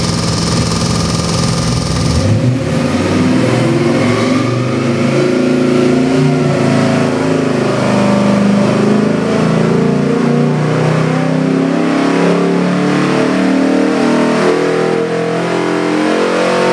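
Ford 351 Windsor small-block V8 with a roller cam and twin FiTech fuel injection, running on an engine dyno. It idles for about two seconds, then opens up for a full-throttle dyno pull, the engine note climbing steadily under load to about 5,200 rpm near the end.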